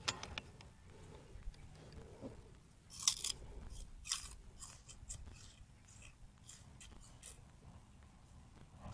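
Quiet clicks and small metallic handling noises from a PCP air rifle being loaded and readied for a shot, with a sharper cluster of clicks about three seconds in.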